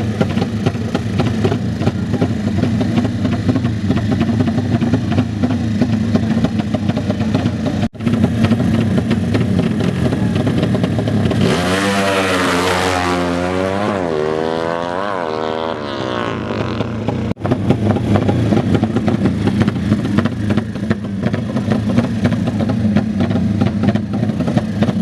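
Motorcycle engines running steadily, with one engine revved hard about halfway through, its pitch climbing and then rising and falling several times over about five seconds.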